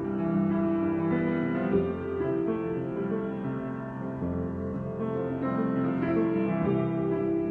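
Solo piano improvisation: slow, sustained chords that change roughly every second.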